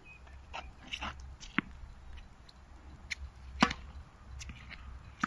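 Tennis balls being struck with rackets and bouncing on a hard court: a few separate sharp knocks, the loudest about three and a half seconds in.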